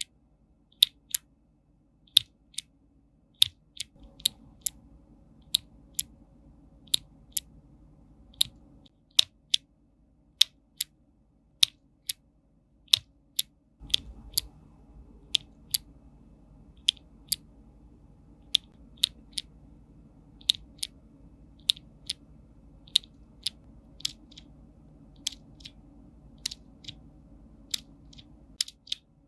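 Keys being pressed one at a time on a mechanical keyboard fitted with clicky switches: sharp, crisp clicks, often in close pairs of press and release, at an unhurried pace of about one or two keystrokes a second.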